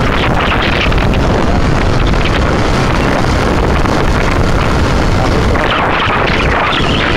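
Loud, steady wind buffeting the microphone: a low rumbling rush with no clear tones.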